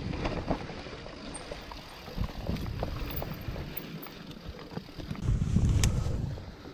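Riding noise from a mountain bike descending a dirt trail: wind buffeting the rider's camera microphone over the rolling of the tyres, with scattered short knocks and rattles from the bike. A louder rush of wind and rumble builds about five seconds in and eases off near the end.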